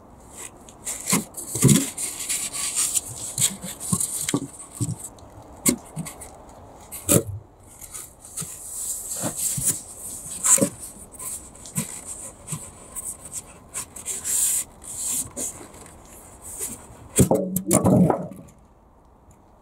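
Rigid foam insulation boards rubbing, knocking and scraping against wooden floor joists as they are pressed into place and worked back out, with a louder squeak of foam on wood near the end.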